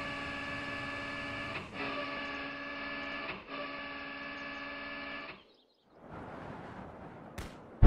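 Steady electric-motor whir of a missile launcher's erecting mechanism: a pitched hum in three stretches broken by brief gaps, stopping about five seconds in. A faint hiss and a single click follow near the end.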